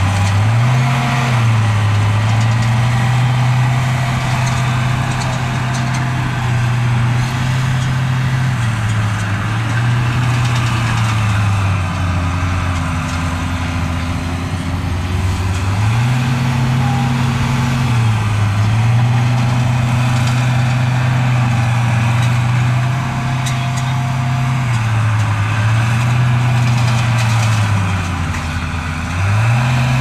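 Heavy diesel engine of an earthmoving machine running under changing load, its pitch stepping up and back down every few seconds.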